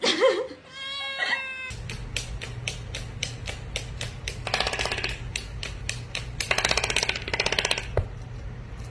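A kitten's meowing cries, rising and falling, for the first second or two, then background music with a steady clicking beat and two stretches of fast rattling, about halfway and near the end.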